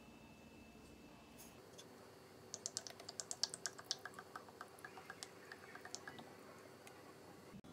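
Wooden spoon clicking against a glass mixing bowl: a run of light, quick clicks, about four or five a second, lasting a few seconds in the middle, over a faint steady hum.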